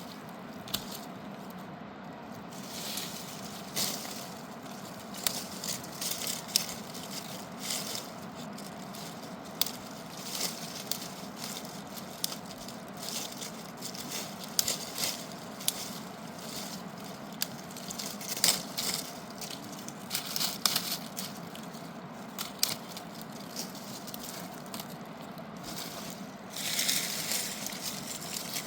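Irregular crackles, clicks and knocks, at times several a second, over a steady low rushing background, with a longer burst of rustling near the end.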